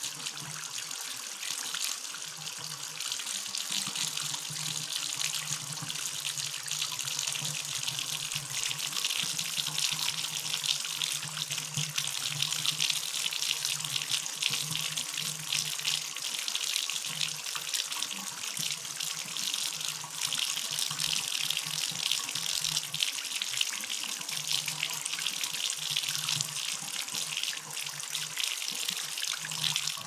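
Bathtub faucet running, a steady stream of water pouring out with a low hum coming and going underneath.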